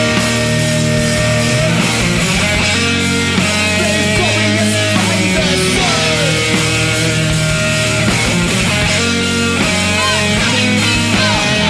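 Live punk band playing loud, with electric guitar chords held and shifting and shouted vocals over the band.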